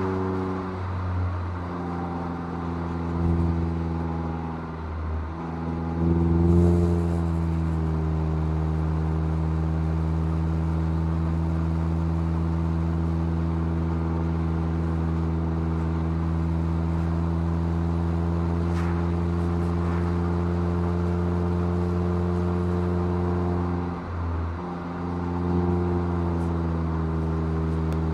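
Mazda MX-5's inline-four engine running through its stock exhaust, mostly a steady note at cruising revs. The revs drop and pick up again in the first few seconds, rise about six seconds in, and dip and recover once more near the end.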